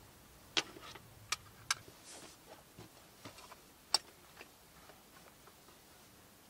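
Scattered sharp clicks and light taps of small objects being handled and set down on a wooden tabletop, with a brief rustle about two seconds in. The loudest clicks fall about half a second, one and a half, and four seconds in.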